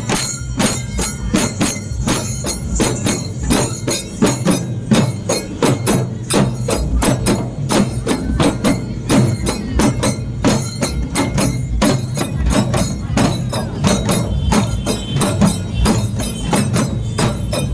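Teenmar procession drumming: loud, fast, driving beats of drums with sharp hits many times a second, keeping a steady rhythm.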